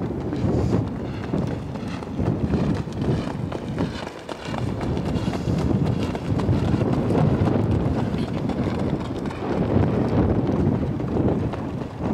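Hoofbeats of a trotter in harness going at a trot on a dirt racetrack.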